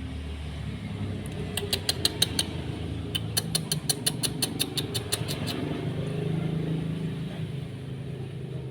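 Orange-headed thrush nestlings begging for food with quick, short, high chirps, about four or five a second, in two runs, the second longer. Under them runs a steady low engine-like hum.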